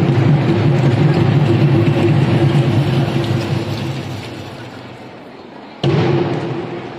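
A held low chord of the performance music dying away, then cut back in loudly about six seconds in and fading again.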